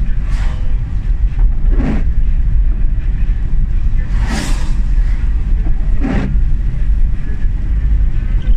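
Car running along a wet road, heard from inside the cabin as a steady low rumble of engine and tyres. A windscreen wiper swishes across the wet glass four times, about every two seconds.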